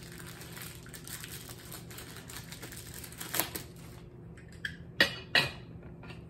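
Plastic wrapping rustling faintly, then three sharp clacks as a black handle is fitted onto a Saladmaster stainless steel pot, the last two about half a second apart and loudest.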